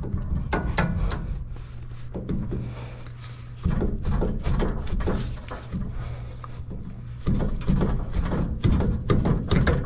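Cast wheel hub of a Sterling 10.25 full-floating rear axle being slid off its spindle by hand: metal scraping, clunks and rattling, busier and louder in the last few seconds.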